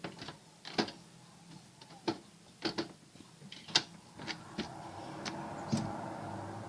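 Irregular sharp clicks and knocks of small hard objects being handled, about a dozen in all, with a steady hum starting about two-thirds of the way through.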